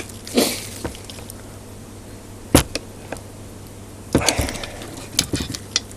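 Hand tools and parts clicking and knocking as someone works at a stuck part in an Emotator 1200 antenna rotator's gearbox. There is a single sharp click, then a quick flurry of clicks and knocks near the end.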